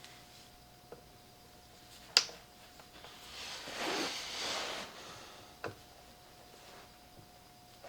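Handling noises while working on a loudspeaker: a sharp click about two seconds in, a rubbing or brushing noise that swells and fades over a second or two, then a lighter knock, over a faint steady hum.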